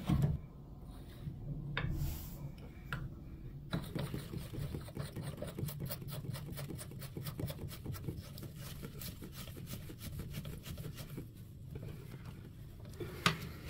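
Chrome lever handle being screwed back onto a Kohler bathroom faucet by hand, metal ticking and rubbing. There is a quick run of light clicks, several a second, from about four seconds in, and a sharper click near the end.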